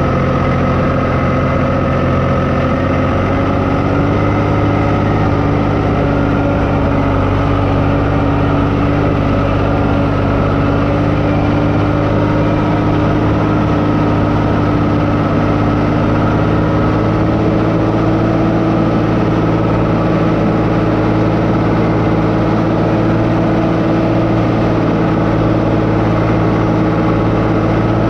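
Engine of a crop-spraying rig running steadily while spraying a cornfield, its pitch rising a little a few seconds in and then holding.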